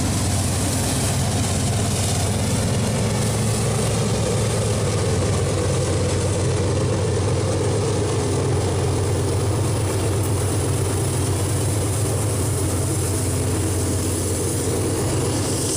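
Diesel locomotive of an iron-ore freight train running, a steady deep engine drone that holds level throughout.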